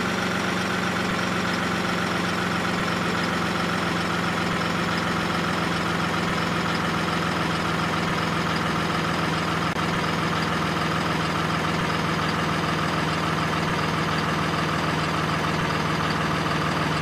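Truck engine idling sound effect: an even drone that holds the same pitch and level throughout.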